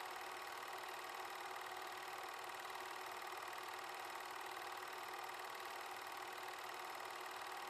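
8mm film projector running: a steady mechanical whirr with no change.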